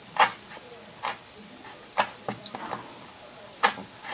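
Stanley utility knife blade pressed down through quarter-inch wool felt into a softwood cutting board, giving a series of sharp, irregular ticks, about eight in four seconds.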